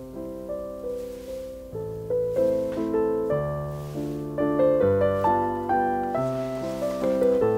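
Background solo piano music: a melody of struck notes over lower chords, each note fading after it is played.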